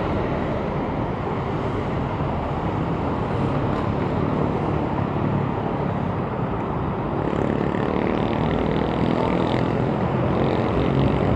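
Steady rush of wind on the microphone of a moving bicycle, with road traffic around it; a nearby motor vehicle's engine hum comes up in the last few seconds.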